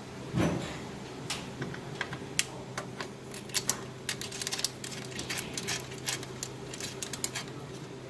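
Irregular light clicks and taps of hard objects being handled, denser in the second half, over a steady low hum. A duller knock comes about half a second in.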